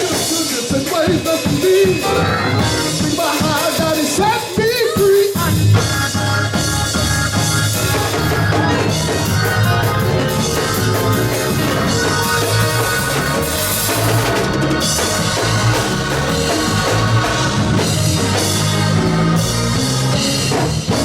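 Live church band music with a drum kit. Wavering melodic lines over separate drum hits give way to the full band playing about five seconds in.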